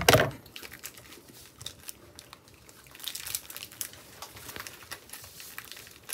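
Aluminium foil wrapper crinkling and crackling in hands close to the microphone, in scattered bits with a denser spell about three seconds in. A loud thump opens it.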